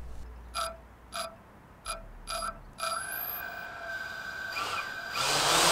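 FPV racing quadcopter's brushless motors giving a series of short beeps from the ESCs, then running armed at idle with a steady whine. Near the end they throttle up into a loud rush of propeller noise.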